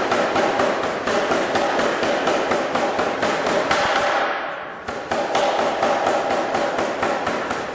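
Anyang self-contained air hammer striking a hot steel bar in rapid, even blows, about five a second. The blows die away briefly about four seconds in, then resume.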